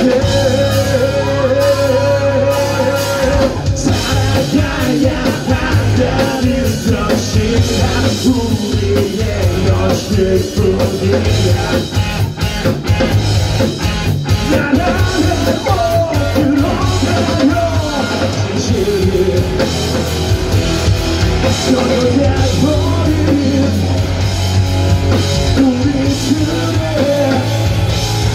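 Live rock band playing loud: electric guitars, bass and drum kit with a singer's vocals, some of it yelled. The drums thicken about three seconds in.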